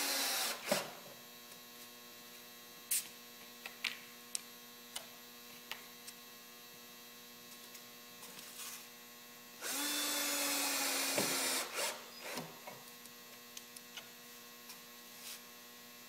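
Cordless drill driving small screws: a short run ends just after the start, then about ten seconds in a second run of about a second and a half with a steady whir that drops in pitch as the trigger is released. Light clicks and taps of screws and clips being handled fall between the runs, over a faint steady electrical hum.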